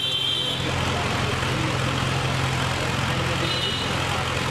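Steady engine hum and street traffic noise heard from a moving vehicle, with a short high-pitched toot at the very start and a fainter one about three and a half seconds in.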